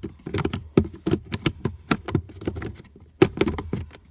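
Plastic cabin air filter housing cover of an Audi Q7 being handled and fitted back into place: a run of irregular plastic clicks and knocks, several a second.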